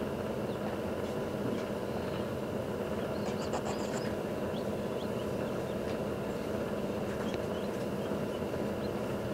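Steady low whir of a forced-air egg incubator's fan, with a few faint short high-pitched chirps or ticks around the middle.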